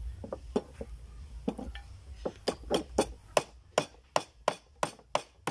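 A bolo knife knocking on oyster shells on a wooden chopping board to crack them open: a few scattered knocks at first, then a steady run of about three sharp knocks a second.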